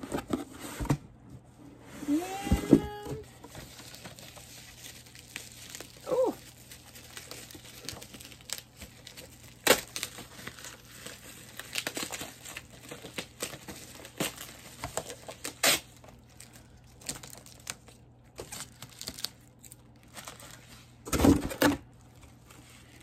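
Plastic wrapping crinkling and tearing in bursts as hands unwrap a packed item, with a couple of short vocal sounds early on. Near the end there is a louder rustle and knock of a cardboard box being moved.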